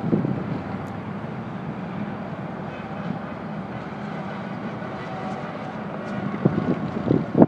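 Steady road-vehicle rumble with a low hum, and wind buffeting the microphone in irregular gusts near the end.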